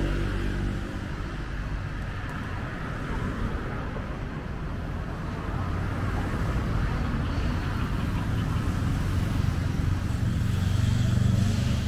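Street traffic noise: a steady hum of passing cars and engines, with an engine growing louder near the end.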